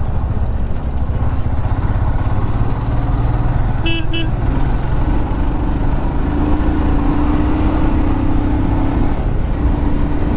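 Motorcycle engine running steadily under way, with a low rumble. About four seconds in there is a quick double toot of a horn.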